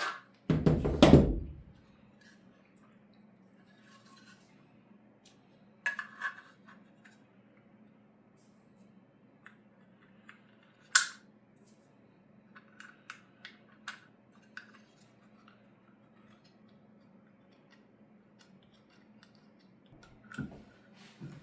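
Holster hanger parts and small hardware being handled and fitted on a work surface. There is one heavy thump about a second in, then a sharp click or two about halfway, and scattered light clicks and ticks, over a faint steady hum.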